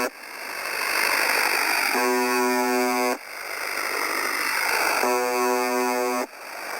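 UVB-76 'The Buzzer' shortwave station on 4625 kHz heard through a radio receiver. Two harsh buzz tones, each a little over a second long, come about three seconds apart. Hissing shortwave static fills the gaps, drops away as each buzz stops and then swells back up.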